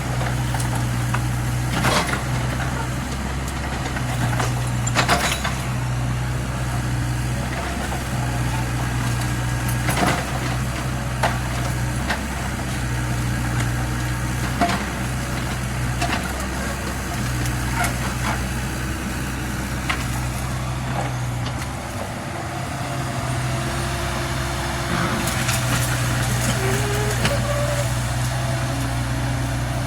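Kubota U50 excavator's diesel engine running steadily under working load, its hum dipping briefly now and then, with about a dozen sharp knocks and clunks of the machine at work scattered through it.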